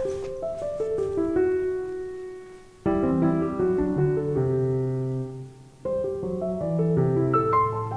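Background piano music: a gentle melody of single notes over low bass notes. It fades near the end of each phrase and comes back in suddenly about three and six seconds in.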